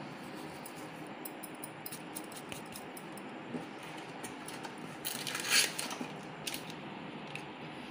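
Steady low background hiss with a few faint clicks, and a brief rustling scrape about five seconds in.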